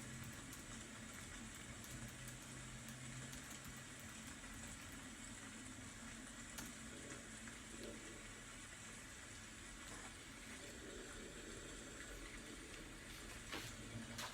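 Steady, faint rain noise, an even hiss, with a few light clicks, one about halfway through and another near the end.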